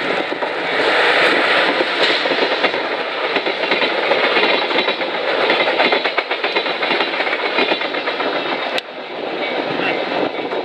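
DD51 diesel-hydraulic locomotive pulling away and passing close, followed by its passenger coaches rolling by with wheels clacking over the rail joints. The noise drops suddenly near the end as the last coach clears.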